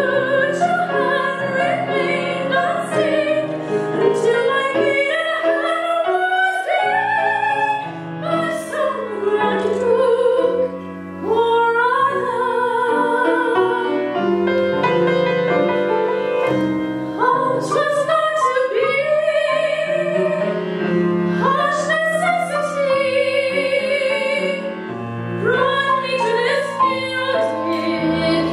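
A soprano singing an operatic coloratura aria with vibrato, accompanied on grand piano.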